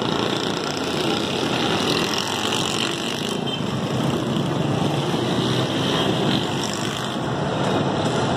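Steady din of street traffic, a continuous engine rumble and hiss with no single vehicle standing out.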